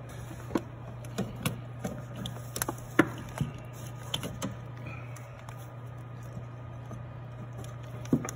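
Scattered light clicks and knocks of a new Silverado intermediate steering shaft and its rubber boot being worked up into place between hoses and the firewall, over a steady low hum. The sharpest knock comes about three seconds in.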